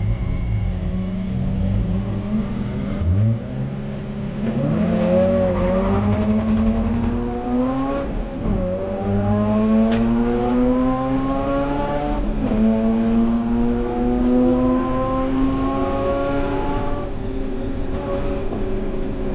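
Mazda RX-8 race car's twin-rotor rotary engine accelerating hard, revs climbing steadily and dropping sharply at upshifts about eight and twelve seconds in.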